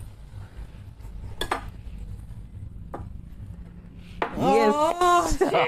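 Two short clicks of tableware being handled, then laughter about four seconds in.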